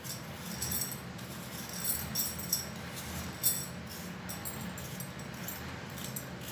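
Hand vegetable peeler scraping the skin off a potato in repeated short strokes, with the glass and metal bangles on her wrists jingling in time with the strokes.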